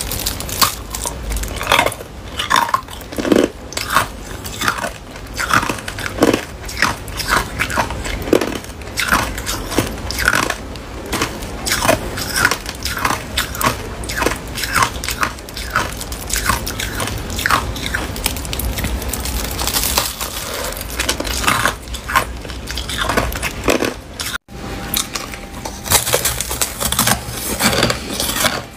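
Close-miked crunching of hard crushed ice being bitten and chewed, a dense run of sharp, irregular crunches several a second, with a momentary break near the end.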